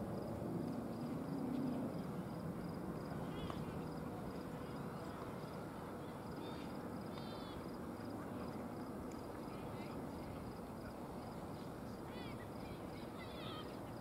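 Ballpark crowd ambience: faint, indistinct voices of people milling about, louder in the first couple of seconds. A few short high chirps and a faint, evenly pulsing high sound run behind it.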